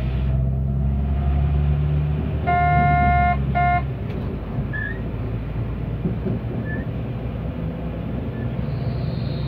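Diesel multiple unit (ÖBB class 5022 Desiro) heard from inside, running with a steady low drone over the rails. About two and a half seconds in, the train horn sounds twice, one longer blast and one short, at a level crossing. The engine drone drops back just after.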